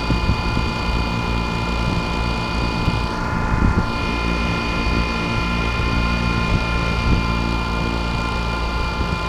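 Engine running steadily at a constant speed, with a low rumble and a steady high whine over it.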